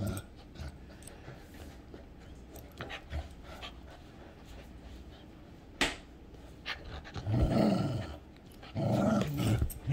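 Two dogs tugging over a plush toy: panting, with two loud, rough play growls of about a second each near the end. There is a single sharp click a little before them.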